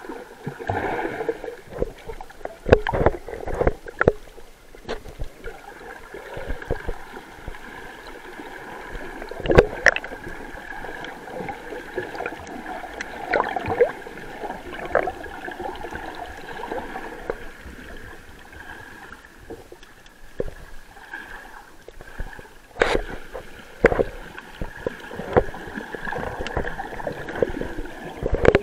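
Sea water sloshing and gurgling around a camera held at the surface by a swimming snorkeler, with sharp splashes and knocks now and then and a steady faint hum underneath.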